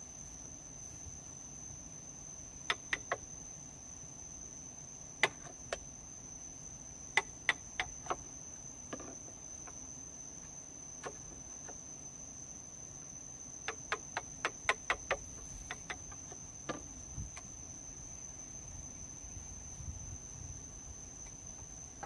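Scattered sharp knocks from hand work, singly and in small groups, with a quick run of about eight knocks about two-thirds of the way through. Under them runs a steady high insect drone.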